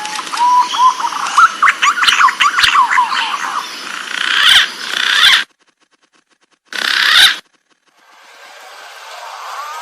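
Green pigeons (punai) calling: wavering, whistled notes that slide up and down, over a hiss. The recording cuts off abruptly about five seconds in, a short burst follows, and a new stretch of calling fades in near the end.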